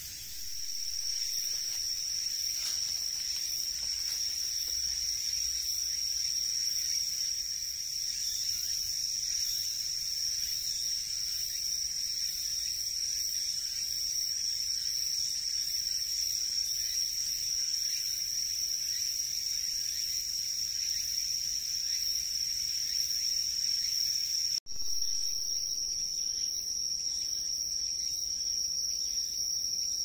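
Crickets singing at night: a steady, high continuous trill that hardly changes, breaking off for an instant about three-quarters of the way through.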